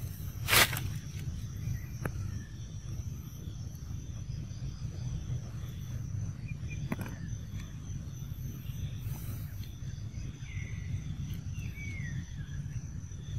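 Outdoor ambience: a steady low rumble and a thin, steady high-pitched drone. A sharp click comes about half a second in and a smaller one around seven seconds, and a few faint, short chirping calls sound near the end.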